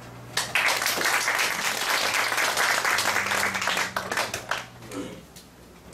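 Audience applauding. The clapping starts about half a second in and dies away after about four seconds.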